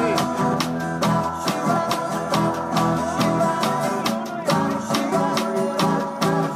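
Live band playing an instrumental stretch: guitar over a snare drum played with sticks, keeping a steady beat.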